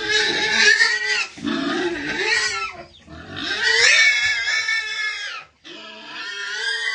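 Pigs squealing: about four long, high squeals in a row, each lasting a second or more with short breaks between.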